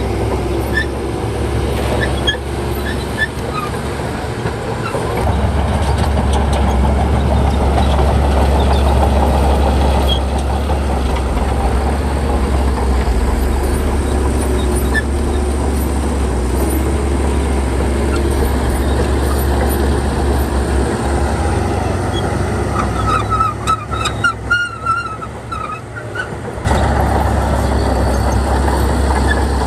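Heavy diesel earthmoving machinery running with a steady low drone. Near the end the engine sound drops off for a few seconds, with some high squeaks, then comes back.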